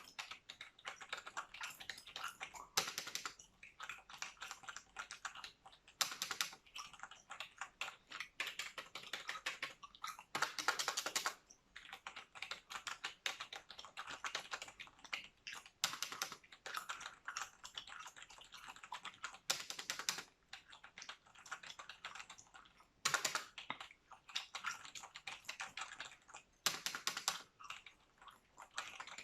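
Computer keyboard typed on continuously, a rapid patter of key clicks with louder clusters of strokes every few seconds.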